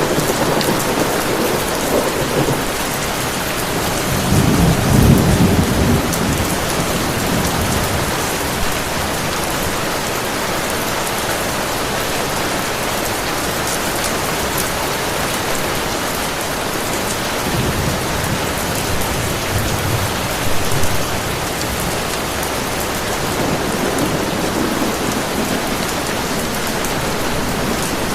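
Heavy rain pouring steadily, with several low rolls of thunder rumbling through it, the loudest about four to six seconds in and others around eighteen to twenty-one seconds and near the end.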